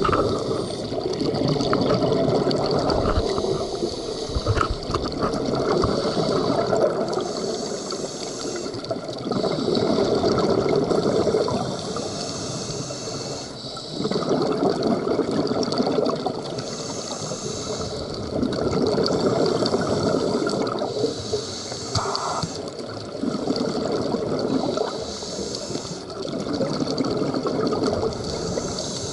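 Scuba diver breathing through a regulator underwater: bubbling exhalations alternating with quieter inhalations, a cycle about every four to five seconds.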